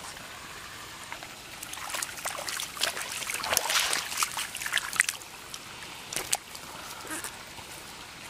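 Hands groping through shallow muddy paddy water for fish, sloshing and splashing, with a busy run of splashes in the middle and softer trickling before and after.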